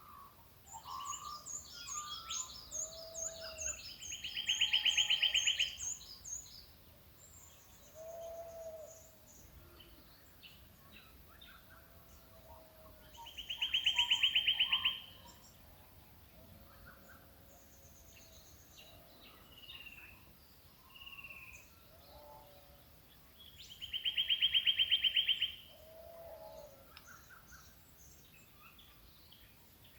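Early-morning chorus of several wild birds in the Australian bush. One bird gives a loud rapid trill lasting about two seconds, three times about ten seconds apart, over quick high twittering in the first few seconds and scattered lower whistled notes.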